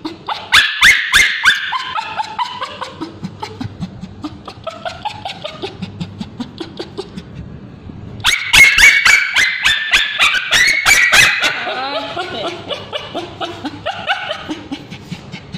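Male Bichon Frise screaming in distress: rapid, high-pitched yelps and cries come in two loud bouts, one right at the start and one about eight seconds in, with quieter whimpering cries between them. He is reacting as ointment is rubbed onto his scabies-affected tail.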